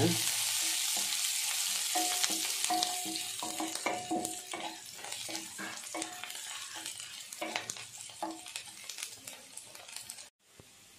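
Garlic, curry leaves and seeds sizzling in hot sesame oil in a nonstick pan, stirred with a wooden spatula that makes short scraping strokes. The sizzle grows fainter and stops abruptly about ten seconds in.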